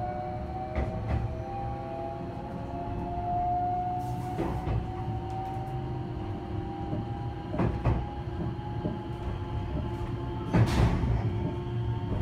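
Electric train heard from inside the front car as it pulls away: a steady rumble with a motor whine slowly rising in pitch as it gathers speed. The wheels give about four sharp clacks as they cross rail joints and points.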